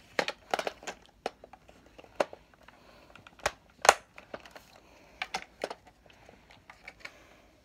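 Hard plastic parts of a Nerf Modulus blaster clicking and knocking against each other as they are handled and pushed together: an irregular scatter of sharp clicks, the loudest about four seconds in.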